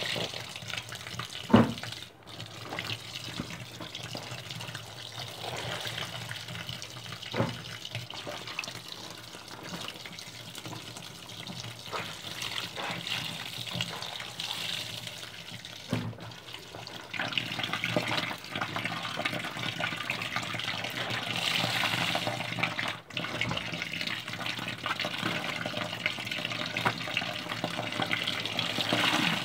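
Water running from a tap into a sink or wash tub during hand laundry. A sharp knock comes about a second and a half in, with a few smaller bumps after it, and the running water gets louder about halfway through.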